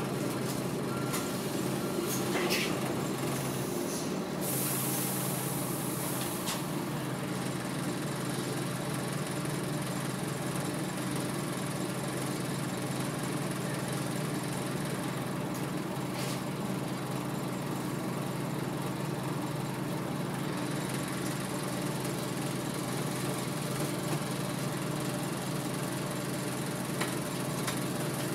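Scania OmniDekka double-decker bus engine running at a steady drone, heard from inside the lower deck. About four seconds in, a hiss of compressed air from the bus's air system lasts around two seconds.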